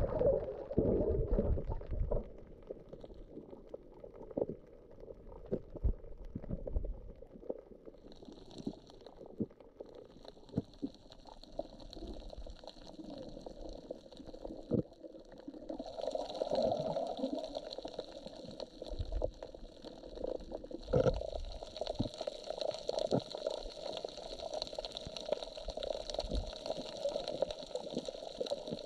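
Underwater sound from a camera held while snorkeling: water gurgling and rumbling around the housing, with scattered sharp clicks and crackles. About ten seconds in a steady high whine comes in, and more steady tones join it later on.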